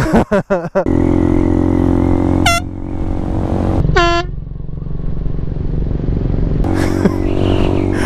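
A motorcycle engine running as the bike pulls away. Two short blasts from a canned air horn mounted on its handlebars come about two and a half and four seconds in, the second one longer and lower.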